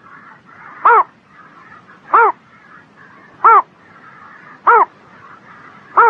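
A bittern calling: short, deep, pitched calls repeated evenly about once every 1.25 seconds, five in all, each rising and falling in pitch. A faint steady chorus runs between the calls.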